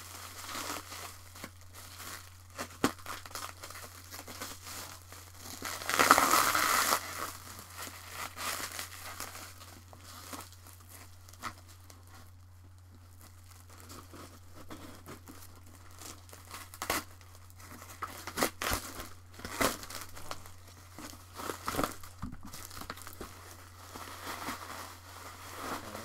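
Heavily wrapped package being cut open with a box cutter and torn apart, its wrapping crinkling and rustling with scattered sharp clicks; a loud tearing sound comes about six seconds in.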